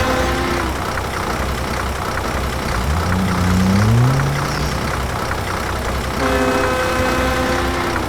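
A motor running with a steady low rumble. Its pitch glides upward about three seconds in, and a steady pitched drone joins near the end.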